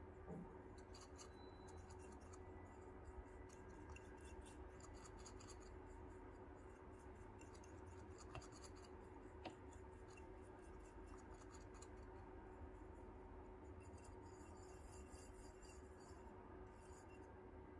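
Faint, repeated scratching of a WDT needle tool stirring espresso grounds inside a portafilter, breaking up clumps before tamping. A steady low hum sits underneath.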